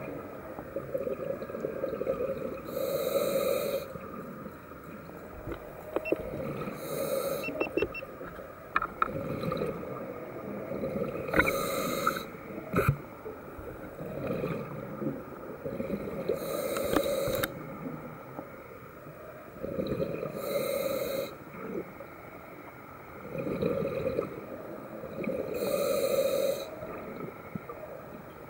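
Scuba diver breathing through a regulator underwater: a hissing inhalation about every four to five seconds, each followed by a bubbling, rumbling exhalation. A few sharp clicks come near the middle.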